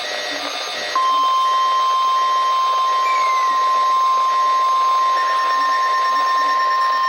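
NOAA Weather Radio warning alarm tone, a single steady 1050 Hz tone, sent as the weekly test of the station's warning signal. It comes in abruptly about a second in and holds steadily, loud over background radio hiss.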